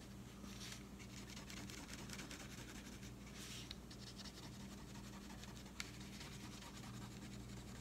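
Black wax crayon rubbed lightly back and forth on paper, a faint, scratchy shading sound that comes and goes with the strokes. There is one sharp click about three-quarters of the way through.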